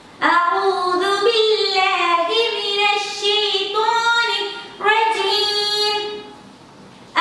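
A woman singing in a high voice, without instruments, in two long phrases of held, gliding notes, the second beginning about five seconds in and fading out.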